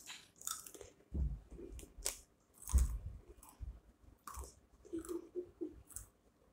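A person chewing a mouthful of Chocos cereal, with irregular crisp crunches and a few duller low thuds.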